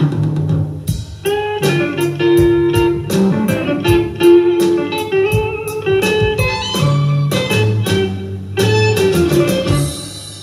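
Blues-style guitar music with a drum beat, played back through a small home speaker system with a Kenwood KSW-7000 passive subwoofer.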